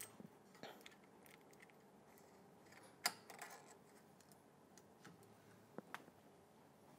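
Faint clicks and light taps of the internal guide parts of a Marzocchi MX Comp fork's left leg being fitted back in by hand. The sharpest click comes about three seconds in, with two more close together near the end.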